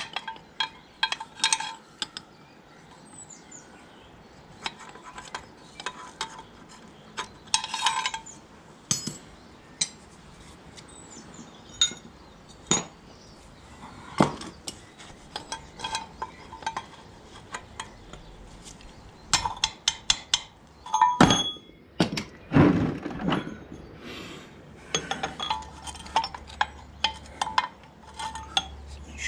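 Small metal parts and hand tools clinking and tapping against the tractor's brake linkage as a split pin is worked into place. Irregular sharp clicks, busiest in clusters in the last third.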